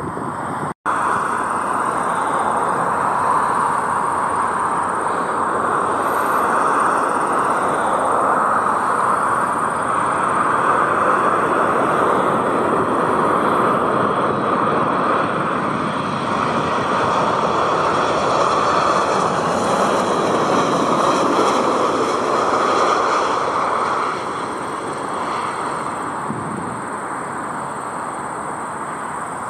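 Jet engines of a narrow-body airliner passing close by: a steady rushing roar with a high fan whine that swells in the middle and eases off near the end. The sound drops out for an instant about a second in.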